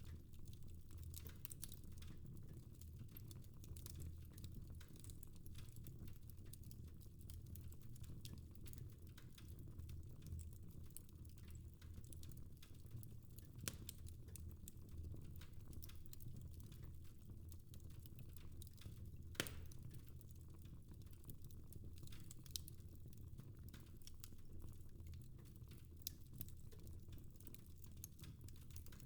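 Fire in a fireplace crackling faintly: scattered small clicks over a low steady rumble, with a few sharper pops, the loudest about 19 seconds in.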